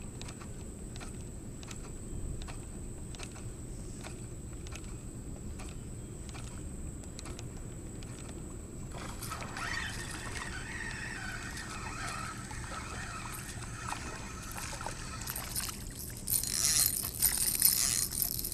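Spinning reel whirring as it is cranked from about nine seconds in, reeling in a hooked fish. Near the end comes loud splashing as the small fish thrashes at the surface and is swung out of the water. The first half holds only faint regular ticking, about two a second.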